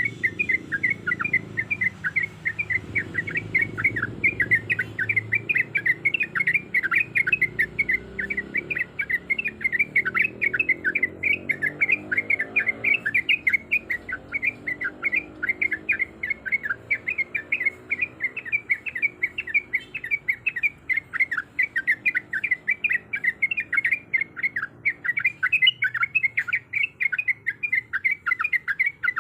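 Yellow-vented bulbul (trucukan) calling: a continuous, rapid string of short chirps, about five a second, used as a lure to make male bulbuls answer.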